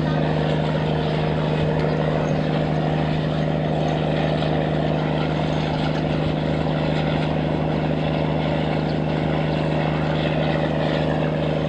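Tugboat engine running steadily under load as it tows heavy sand-laden barges, a constant low drone that does not change.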